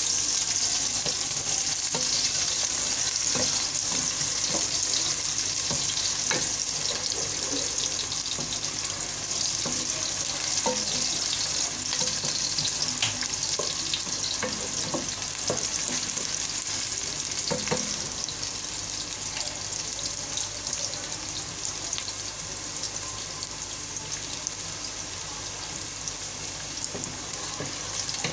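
Sliced onions sizzling in hot oil in a pot, stirred with a wooden spoon that knocks lightly against the pot now and then. The sizzle eases off a little toward the end.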